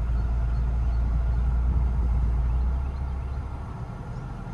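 Ford Bronco driving off-road, heard from inside the cabin: a steady low rumble from the engine and drivetrain that eases about three seconds in.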